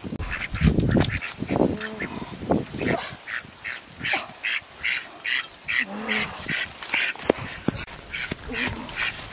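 A duck quacking in a quick, even series, about three quacks a second, starting about three seconds in. Before that, low rustling and thumps, like footsteps through grass and brush.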